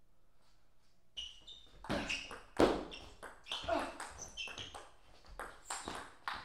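Table tennis rally: the celluloid-type ball being struck by rubber-faced rackets and bouncing on the table, in a fast, irregular string of sharp knocks starting about a second in, one hard hit louder than the rest.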